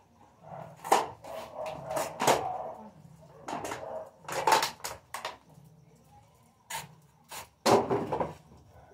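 A series of sharp knocks and clatters, about a dozen and irregularly spaced, with the loudest cluster near the end.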